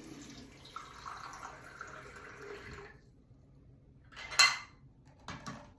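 Water running into the tub of a small battery-powered makeup sponge washing machine as it is filled, stopping about three seconds in. About a second later comes one short, sharp knock, then a few small clicks.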